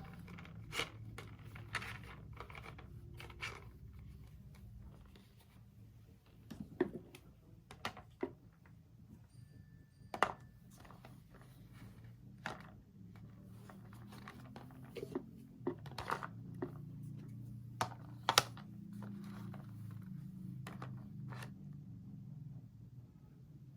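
Scattered light clicks and taps of a soap rack and small items being handled, at irregular intervals over a low steady hum.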